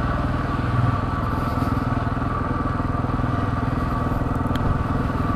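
KTM 690 Enduro's single-cylinder four-stroke engine running at a steady speed while the bike is ridden, with no change in pitch.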